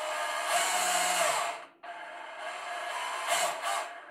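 DeWalt cordless deep-cut band saw running free, its trigger squeezed to show the variable speed. It starts abruptly and runs loud, cuts out for a moment a little under two seconds in, then runs again more slowly and swells twice as the trigger is pressed harder.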